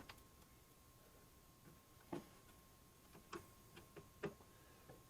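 Faint scattered clicks and taps, about half a dozen, mostly in the second half, from small tools and screws being handled while fitting a panel.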